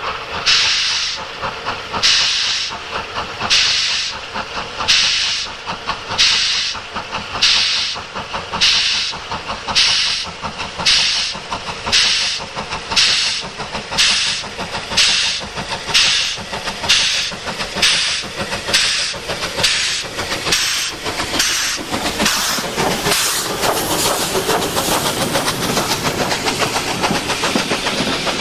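Unrebuilt Bulleid Battle of Britain class 4-6-2 steam locomotive working a train, its three-cylinder exhaust beating in a steady rhythm. Each beat comes with a burst of steam hissing from the open cylinder drain cocks. Near the end the beats merge into a continuous hiss and rattle as the engine draws level and passes.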